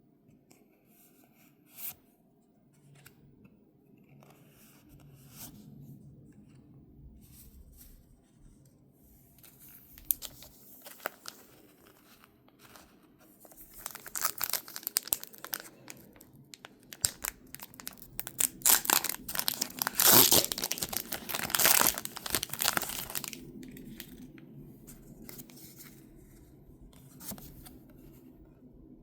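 Plastic or foil packaging being torn open and crinkled by hand. A few scattered rustles and clicks come first, then about halfway through a long stretch of dense crinkling and tearing lasts around nine seconds before dying back to light handling.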